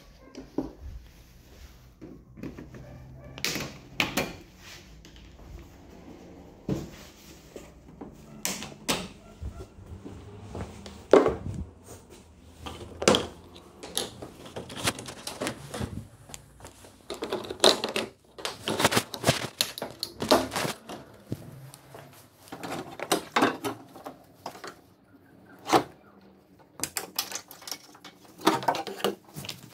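Hand tools and the plastic cowl trim of a car's engine bay being handled, giving irregular sharp clicks, knocks and clatter every second or two.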